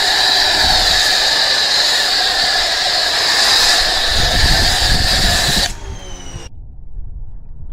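A machine running loudly with a steady hiss and whine. It cuts off sharply near the end and winds down in pitch, leaving a faint low rumble.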